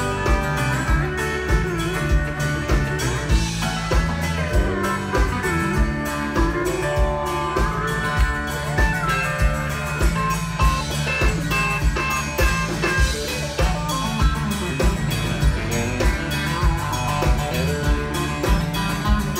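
Live country band playing an instrumental break: electric and acoustic guitars, bass guitar, drum kit and pedal steel guitar over a steady beat, with no singing.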